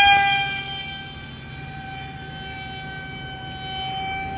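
Electric motor of a radio-controlled foam jet whining steadily just after a hand launch: one high tone with several overtones. It is loudest at the start and eases off a little within the first second as the plane climbs away.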